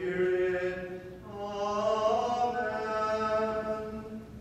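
Liturgical chant: a voice sings long held notes, the pitch stepping up to a higher sustained note after about a second.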